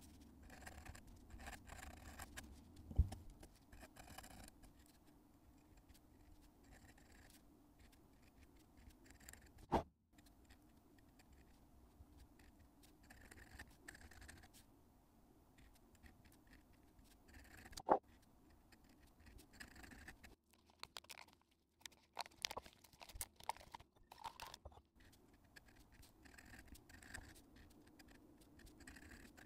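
Dip pen nib scratching across a paper index card in short writing strokes, faint, with three sharp clicks spread through.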